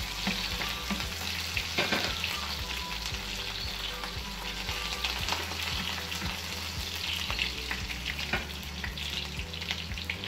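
Finely sliced garlic sizzling and crackling in hot oil in a frying pan, stirred and scraped with a wooden spoon; the garlic is browning.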